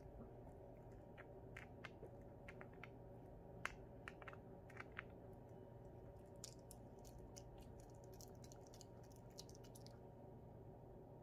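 Pomeranian puppy gnawing on a hard dog treat: faint, scattered small crunches and clicks from its teeth, coming thicker in the second half, with one sharper crack about three and a half seconds in.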